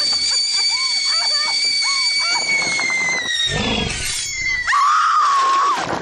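Cartoon soundtrack: a high, steady tone that slowly slides down, with short chirping sounds over it, then a low swoop and a loud, held scream about five seconds in.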